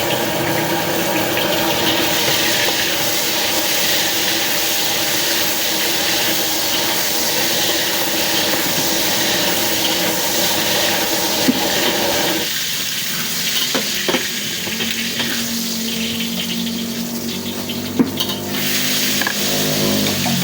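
Food sizzling and frying in a wok, with a few sharp metal clinks of a spatula against the pan. The sizzle drops in level about twelve seconds in.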